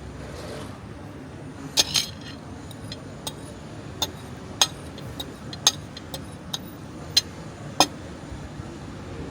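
A series of about ten sharp, irregular clinks, the first two close together about two seconds in and the last near eight seconds, over a steady background hum.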